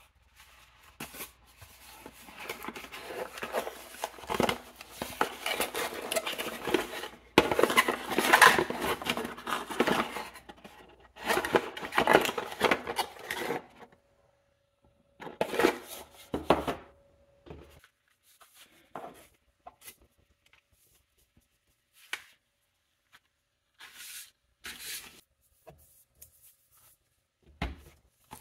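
Cardboard packaging being handled: a small box's flaps opened, with steady rustling and scraping for the first half. Then come scattered short rustles and knocks as a charger and its cable are lifted out and the box is set down.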